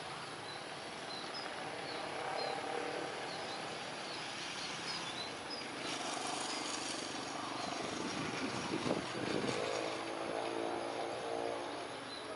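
Road traffic passing close by: motorcycles and a small pickup truck go past, with a louder engine passing about nine seconds in.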